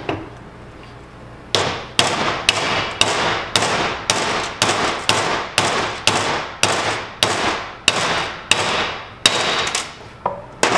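A hammer strikes a seal-driver disc and shim, driving a radial axle seal down to depth in a Dodge half-ton front axle housing. One tap comes at the start, then from about a second and a half in a steady run of about twenty sharp, ringing blows, roughly two a second.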